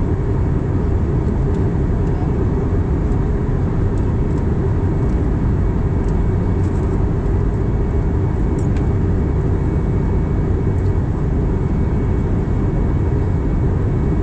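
Steady low roar of an Airbus A320's engines and airflow heard inside the passenger cabin in flight, with a faint steady hum on top.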